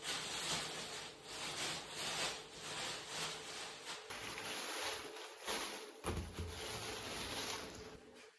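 Kitchen food-preparation sounds: repeated rubbing, scraping strokes at about one a second.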